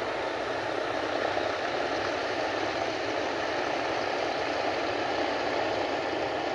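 De Havilland Canada DHC-2 Beaver floatplane's engine and propeller droning steadily in flight.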